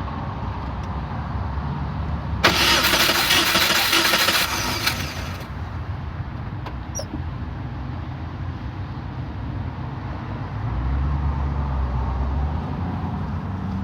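Compressed air hissing loudly for about three seconds during a cylinder leak-down test on a Subaru EJ22 engine, over a steady low mechanical hum. The cylinder under test is not holding pressure.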